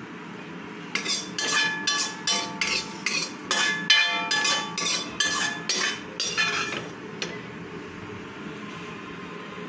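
Metal ladle clanking and scraping against a metal kadai (wok), a run of sharp ringing strikes two or three a second that starts about a second in and stops around seven seconds.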